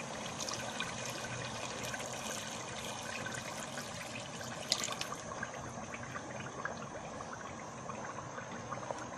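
A pot of fried goat-head pieces with water just added, sizzling and bubbling on the stove: a steady crackling hiss with small pops and one sharper pop about halfway. A wooden spoon stirs through it near the end.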